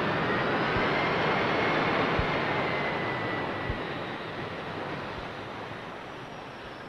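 Boeing 727's jet engines running at taxi, a steady rushing noise with a faint high whine that fades gradually.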